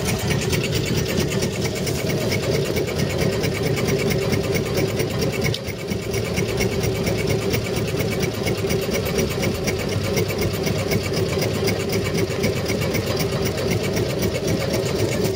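Homemade Stirling engine running steadily, driving a belt-driven car alternator: a fast, even mechanical clatter over a steady hum.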